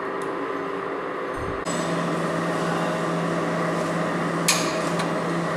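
Click-type torque wrench tightening the lower shock absorber mounting bolt, giving one sharp metallic click about four and a half seconds in as it reaches the set torque, with a fainter click just after. A steady workshop hum runs underneath, stepping up about a second and a half in.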